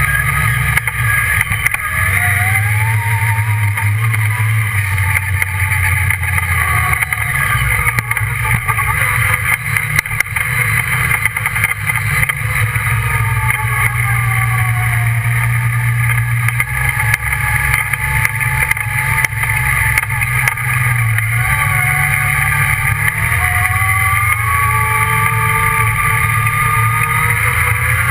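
Redline Revolt off-road buggy's engine running under way, heard from the cockpit, its pitch falling and rising several times as the throttle is eased off and opened again, with a few sharp knocks.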